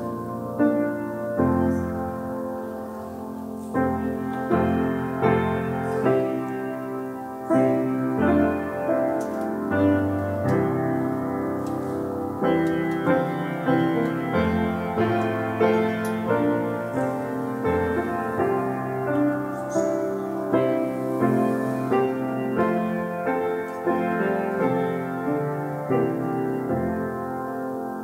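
Instrumental piano music: chords and notes struck at a slow, even pace with no singing.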